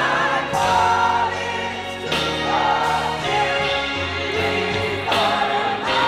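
Gospel church choir singing, voices held on long wavering notes over a steady low bass line.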